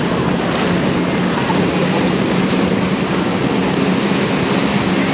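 T-6 Texan piston engines droning steadily as the planes fly, with a constant low hum under a wash of surf and wind noise.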